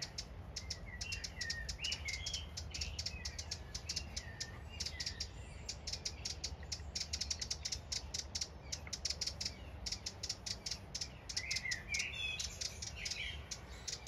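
Eurasian wren scolding: a long run of rapid, dry ticking alarm notes, with softer chirps in between. It is alarm-calling at a cat, probably near its fledged young on the ground.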